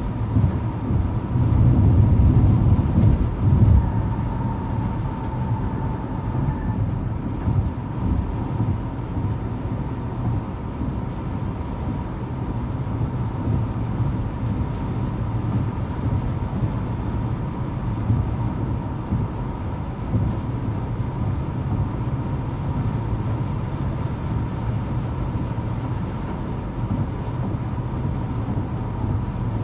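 Steady rumble of tyres and engine heard from inside a car cruising at highway speed, a little louder for the first few seconds.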